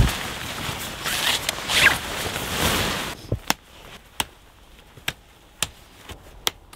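Tent fabric rustling and swishing as it is pulled and fitted over the poles. Then, after about three seconds, it goes quieter, with a run of short, sharp clicks.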